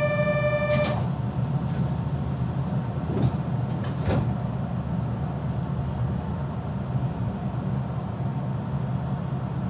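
Kobe Electric Railway train's electronic door chime, a steady tone that stops about a second in, then the sliding doors thud about four seconds in. A steady low hum from the train runs underneath.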